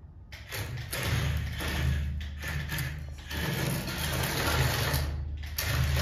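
Battery-powered toy excavator's small electric motor and plastic gearbox whirring as it drives. It starts up just after the beginning and dips briefly twice along the way.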